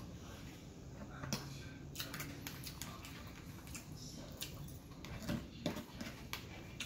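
Close-miked chewing and mouth sounds of someone eating a fried chicken sandwich and coleslaw. A metal fork scrapes and taps in a plastic coleslaw cup, giving sharp clicks, the loudest near the middle and after about five seconds.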